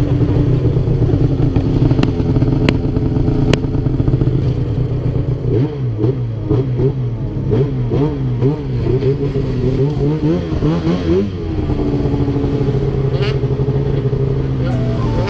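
Two-stroke snowmobile engine running, its pitch steady at first, then swinging up and down repeatedly with the throttle for several seconds around the middle before it settles again. A few sharp clicks come in the first four seconds.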